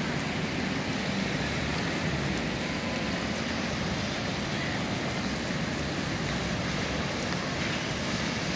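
Steady hiss of rain falling over the city, mixed with the noise of traffic on wet roads below.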